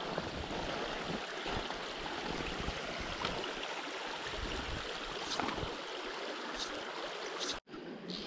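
The Current River running over a shallow gravel riffle: a steady rush of flowing water, with a few faint clicks and a momentary cutout near the end.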